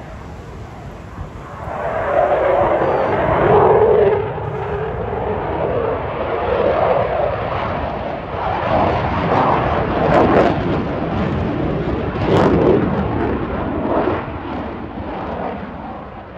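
Eurofighter Typhoon's twin Eurojet EJ200 turbofans in afterburner as the jet flies its display: the engine noise swells about two seconds in, then rises and falls with a crackling edge.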